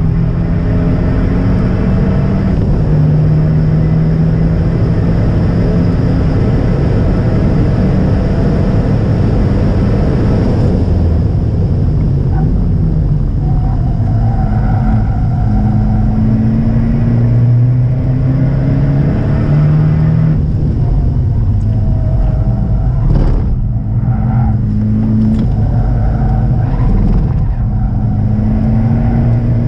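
Fiat 124 Abarth's 1.4-litre turbo four-cylinder heard from inside the cabin at full effort on a track lap, its pitch climbing through the revs and dropping back several times as the driver shifts and brakes. The engine note sits over road and wind noise, with a single sharp knock about three quarters of the way in.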